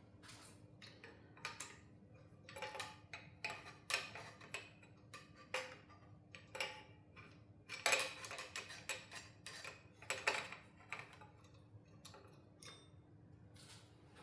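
Hand tools and metal engine parts clicking and clinking irregularly as a Suzuki F6A three-cylinder engine is taken apart, with a cluster of louder clinks about eight seconds in. A faint steady hum lies underneath.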